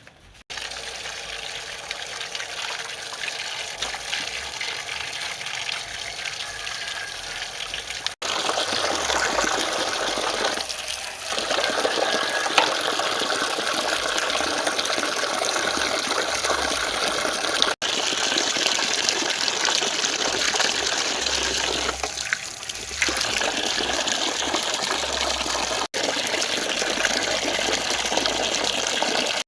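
Water running in a steady gush, with a few brief breaks where the footage is cut.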